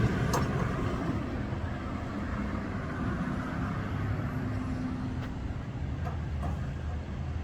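Steady low engine rumble of heavy road-construction machinery and nearby highway traffic, with a few faint clicks.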